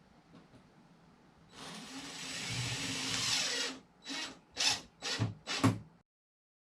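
Handheld power tool working wood: one run of about two seconds, then four short trigger bursts in quick succession.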